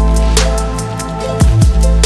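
Electronic background music with a steady drum beat, fast ticking hi-hats and a deep bass that slides down in pitch, once about a second and a half in.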